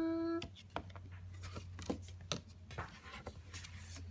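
Soft rustles and light clicks of a paper picture menu being handled and opened, over a steady low hum. A drawn-out spoken word trails off in the first half second.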